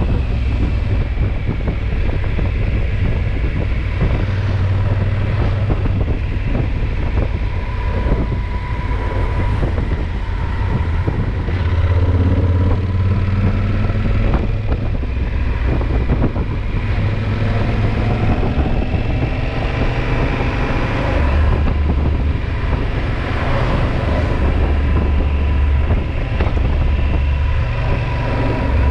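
Yamaha XT1200Z Super Ténéré's parallel-twin engine running under way, with wind rushing over the microphone. The engine note rises and falls a few times as the throttle changes through the bends.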